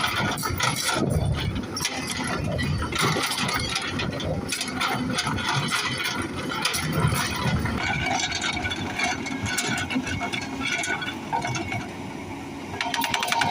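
Excavator diesel engine running under a rapid clatter of repeated impacts, the hydraulic breaker hammer chiselling hard stone; near the end the blows turn into a fast, even rattle.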